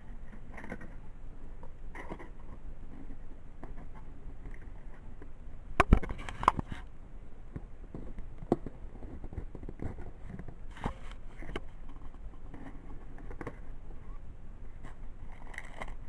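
A Yu-Gi-Oh! card-set box being opened by hand and its contents handled: scattered scrapes, rustles and light clicks, with a louder knock about six seconds in and a few smaller ones after.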